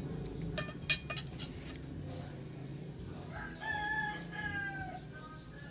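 A rooster crows once, a long crow starting a little over three seconds in that sags slightly in pitch toward its end. Before it, about a second in, there are a few sharp clicks, the loudest sounds here.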